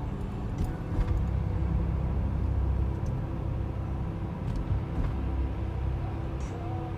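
Steady low rumble of car traffic on a busy city street, with a few faint clicks scattered through it.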